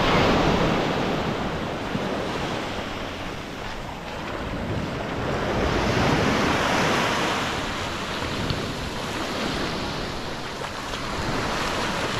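Small surf waves washing onto a beach, the sound rising and falling in slow swells, with wind on the microphone.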